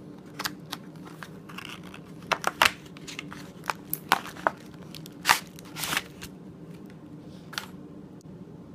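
Cardboard box and plastic packaging of a Sculpey polymer clay multipack being handled and opened: a run of irregular crinkles, crackles and taps, thickest in the first six seconds.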